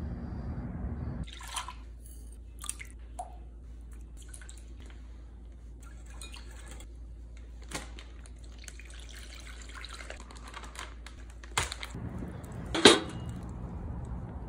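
Kitchen prep sounds: a liquid pouring and dripping, with small scattered clicks and taps. Near the end comes one short, loud squirt as oil is squeezed from a plastic squeeze bottle onto a cast-iron griddle.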